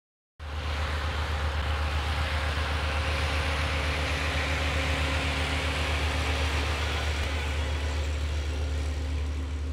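Diesel engine of a snow-plowing wheel loader running steadily with a deep hum and an even hiss over it, cutting in abruptly about half a second in.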